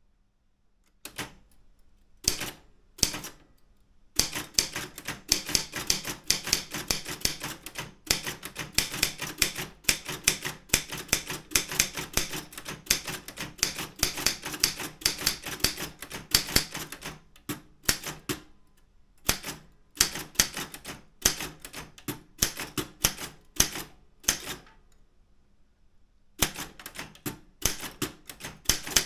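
Daro Optima M16 manual typewriter being typed on: a few single keystrokes, then a long fast run of key and typebar clacks, thinning into scattered strokes with short pauses before fast typing starts again near the end.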